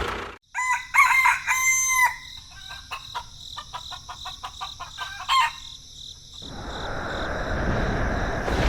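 A rooster crowing once, followed by scattered short clicks and a brief second call. A few seconds before the end, a steady hissing noise rises and grows louder.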